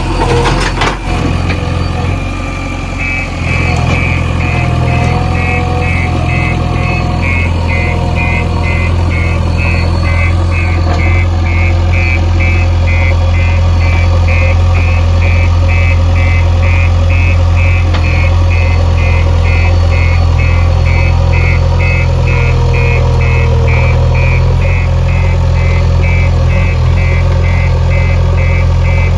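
Diesel engine of a JCB 3DX backhoe loader running hard, its speed coming up about three seconds in. From then on a reversing alarm beeps steadily about twice a second, a sign the machine is in reverse, trying to back out of the mud.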